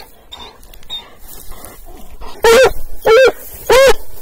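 A blood-tracking dog gives three short, high-pitched whines in quick succession about halfway through. She is eager to push on along the deer's trail while her handler holds her back on the leash.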